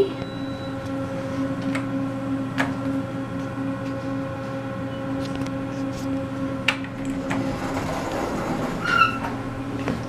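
Passenger traction elevator, taken for an Otis Gen2, running down: a steady hum of several fixed tones from the drive and car, with a few light clicks. About eight seconds in the hum gives way to a rising rushing noise.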